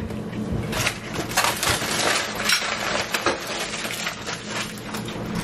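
Aluminium foil crinkling and crackling as a foil-wrapped piece of takeout food is handled and unwrapped, with a fork clicking against a plastic takeout container.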